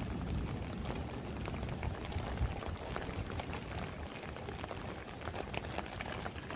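Heavy rain falling steadily: a continuous hiss full of close individual drop strikes.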